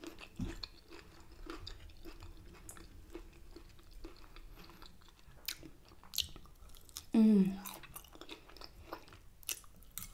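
A person chewing and biting food close to the microphone, with scattered sharp mouth clicks and a brief sound of the voice about seven seconds in.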